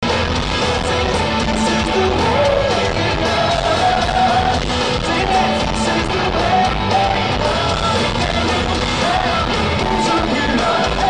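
Live rock band playing a song with electric guitars, drums and a sung lead vocal, recorded from among the audience in a concert hall.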